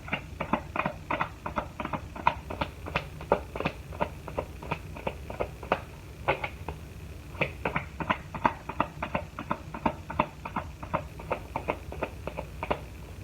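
Cards being handled or shuffled: an irregular run of quick taps and clicks, several a second, with a short pause about halfway through.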